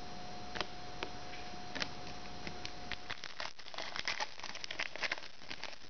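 Hands handling 2016-17 Panini Studio basketball trading cards and their pack wrapper: scattered light clicks and crinkling, sparse at first and much busier from about halfway.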